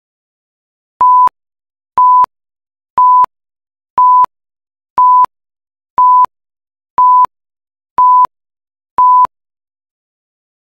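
Countdown leader beeps: nine short, identical beeps of a single steady tone, one each second.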